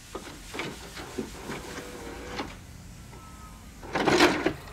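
Cloth and chalk rubbing on a framed chalkboard: a series of short scratchy strokes, then a longer, louder scrub about four seconds in.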